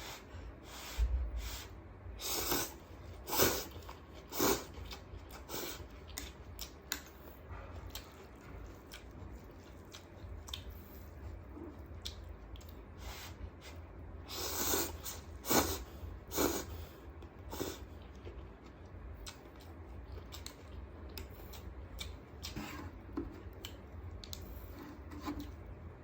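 A person chewing food close to the microphone, mukbang-style: irregular smacking and crunching clicks, louder a couple of seconds in and again about halfway through.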